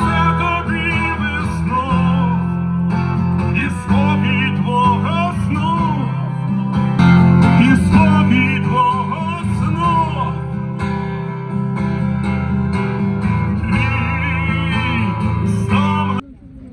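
Live amplified acoustic guitar and a man's singing voice through PA speakers, a steady song with a strong low end; it cuts off suddenly near the end.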